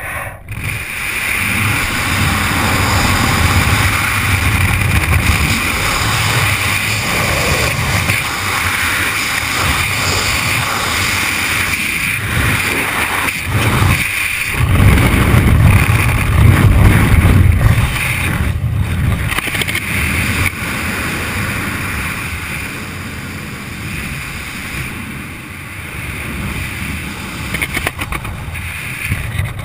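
Wind noise rushing over a helmet-mounted camera's microphone during a skydiver's freefall, with heavy low buffeting. It builds over the first couple of seconds as the fall picks up speed and eases off a little in the last several seconds.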